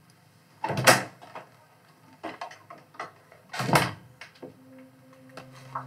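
Two loud thumps about three seconds apart, with lighter knocks and clicks between them. About four and a half seconds in, a low steady music drone sets in.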